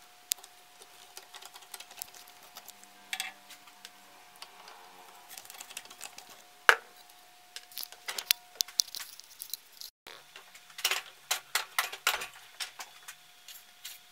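Metal tools and edger parts being handled on a wooden workbench: irregular clicks, taps and light knocks, with one sharper click about seven seconds in and a quick run of clicks a few seconds before the end. A faint steady hum sits underneath.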